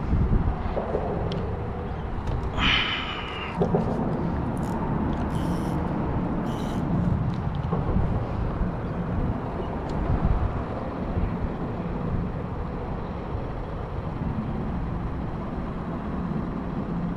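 Steady low rumble of road traffic on the bridge overhead. About three seconds in there is a brief, slightly falling whir.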